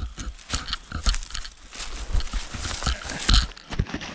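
Dry fallen leaves crunching and rustling in irregular bursts as a person moves through them.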